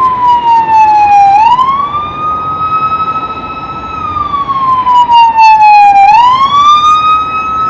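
Emergency vehicle siren wailing loudly, going through two slow cycles: each time the pitch slides down, then rises more quickly and holds. It cuts off near the end.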